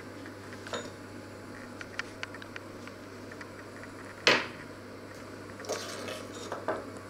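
Ceramic dishes being handled in a kitchen: small clinks early on, one loud knock about four seconds in, and a short clatter near the end, over a steady low hum.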